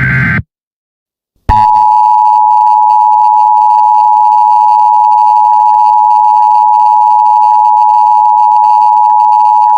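Mock Emergency Alert System broadcast: the tail of a harsh, buzzing data burst, a second of silence, then the loud, steady two-tone EAS attention signal, a dual sine tone of about 853 and 960 Hz sounding for about eight seconds.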